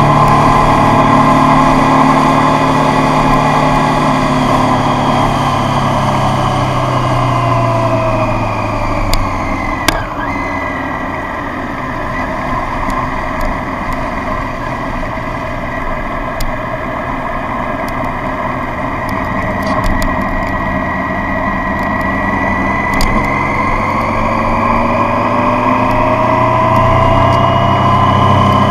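Triumph Street Triple's three-cylinder engine heard from on the bike, with wind and road noise: the engine note falls steadily over the first ten seconds as the bike slows, runs low and steady, then rises again near the end as it accelerates. A couple of sharp clicks about ten seconds in.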